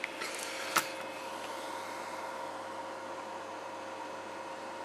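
Steady background hiss with a faint electrical hum in two steady tones, and a single short click a little under a second in.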